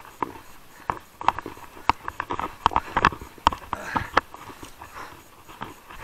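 Mountain bike rattling over a wet, stony trail: irregular sharp clicks and clatters from the bike jolting on loose stones. About four seconds in, a brief rustle as the handlebar brushes through bushes.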